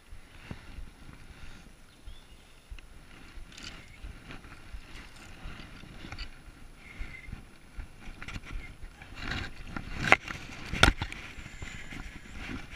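Close handling noise as a brown trout is held and unhooked by hand: rustling and rubbing near the microphone, with two sharp knocks about ten seconds in.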